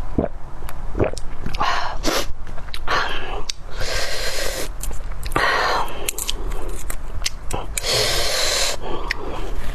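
Close-up eating sounds: about six loud breathy bursts of air drawn through the mouth or nose, each about half a second long, with small wet mouth clicks between them, as the eater works through spicy bone marrow.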